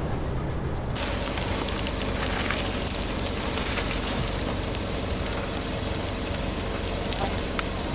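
Dense crackling and crunching over a low engine hum: a car's tyre rolling over and crushing brittle objects. The sound becomes brighter and more crackly about a second in.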